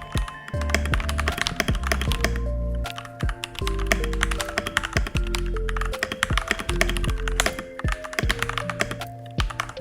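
Fast, steady typing on a Royal Kludge RK61 mechanical keyboard, many key clicks a second, over background music with a bass line.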